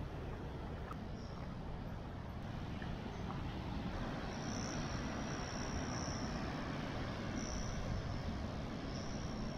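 Steady wash of ocean surf breaking on the beach, an even rumbling noise. From about four seconds in, a few short high chirps sound over it.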